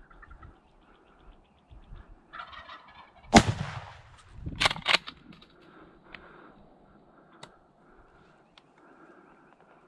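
Wild turkey gobbling, a rapid rattling call, with a few loud sharp knocks and rustles close by, about three and a half and five seconds in.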